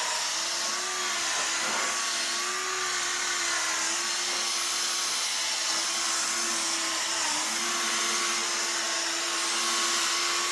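Small electric rotary buffer running steadily with a whining motor tone, the pitch sagging briefly now and then as pressure comes on. The pad is cutting polishing compound on fresh clear coat to refine 5000-grit sanding scratches to gloss.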